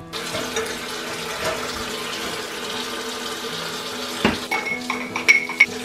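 Kitchen faucet running a steady stream into the sink while ceramic mugs and a pitcher are rinsed under it, with a sharp clink about four seconds in and several short ringing ceramic clinks after it.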